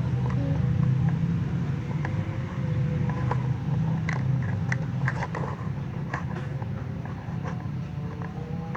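Small plastic toy kitchen pieces clicking and tapping as they are handled and set down, scattered irregularly and busiest midway, over a steady low hum.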